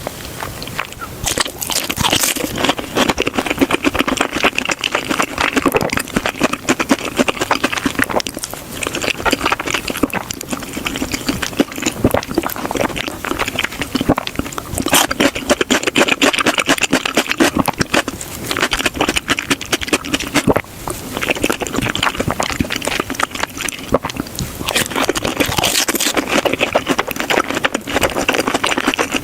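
Close-miked chewing of crispy deep-fried breaded pork cutlet (tonkatsu): dense crackling crunches of the fried crust, chew after chew, with brief pauses between bites.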